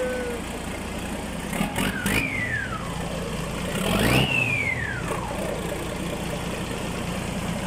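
REO M35 army truck engine running, revved briefly twice about two seconds apart. Each rev brings a high whistle from the engine that shoots up in pitch and slides back down over about a second.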